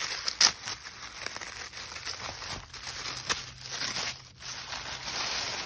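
Tissue paper crinkling and rustling as a wrapped package is opened by hand, with a few sharp crackles, the loudest about half a second in.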